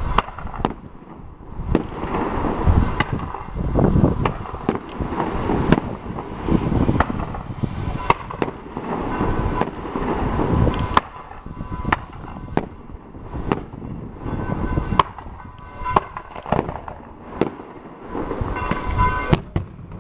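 Fireworks going off: a string of sharp bangs and crackling bursts, some single and some in quick clusters, over a rumbling echo.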